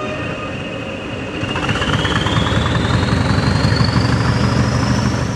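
Diesel locomotive hauling tank wagons approaching at speed: a steady engine rumble that grows louder, with a high whistle rising steadily in pitch over it.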